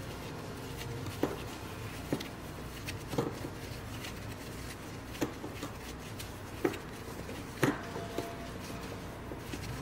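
A screwdriver working a small screw that holds the steel burr of a Eureka Mignon Specialita grinder: sharp metallic clicks of the tip against the screw head, about seven at irregular intervals. The screw is tight enough that a mini electric drill is wanted for it.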